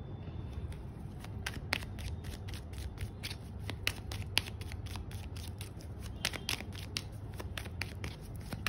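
A deck of tarot cards being shuffled by hand: many short, crisp card snaps and slaps at an irregular pace, over a steady low hum.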